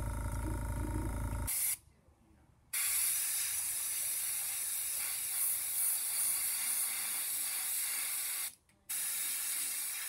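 Airbrush spraying paint, a steady high hiss from about three seconds in that cuts out briefly near the end. Before it, a steady low hum stops about a second and a half in.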